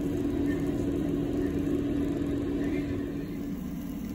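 Steady motor hum of a kitchen appliance, holding one pitch over a low rushing noise and easing off a little near the end.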